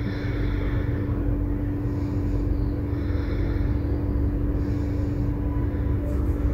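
A ladle stirring thick egg-roast gravy in a stainless steel pot, over a steady low hum and rumble.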